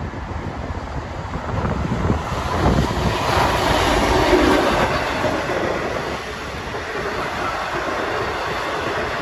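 V/Line N class diesel-electric locomotive passing with a passenger train: the sound builds as it approaches and is loudest as the locomotive goes by about four seconds in. Then the carriages roll past, their wheels running steadily on the rails.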